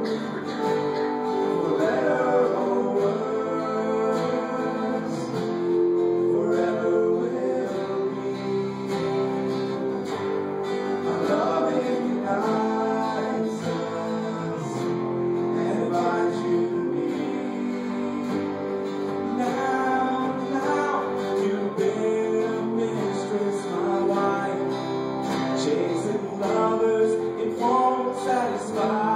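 A group of men singing a song to acoustic guitar strummed as accompaniment.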